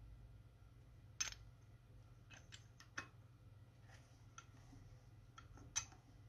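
Faint small metallic clicks and taps from a Honda 125 piston and gudgeon pin being handled and seated on the connecting rod, a few scattered ones, the sharpest about a second in and near the end, over a low steady hum.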